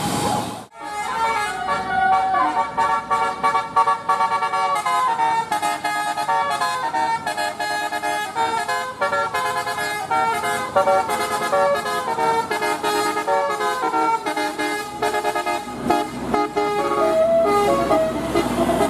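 Indonesian 'telolet' bus horn, a multi-tone musical air horn, playing a fast melody of short notes that step up and down in pitch, starting just under a second in.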